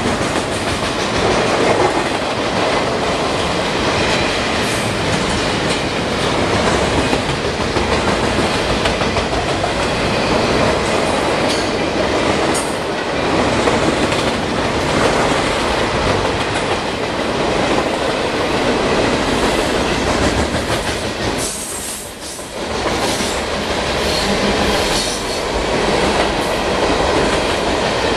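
Long freight train of double-stack container well cars rolling steadily past at close range, wheels clattering over the rails with a few high wheel squeals. The noise dips briefly about three-quarters of the way through.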